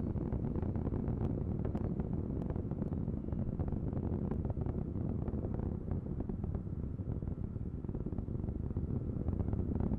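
Low, steady rumble with irregular crackling from the Ares I-X's four-segment solid rocket motor burning in flight, heard from far off.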